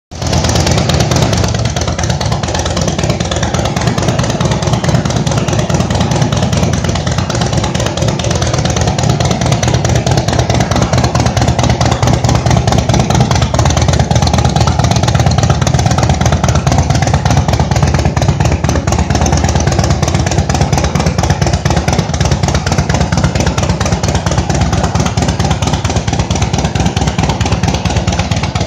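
Harley-Davidson Shovelhead V-twin motorcycle engine running steadily.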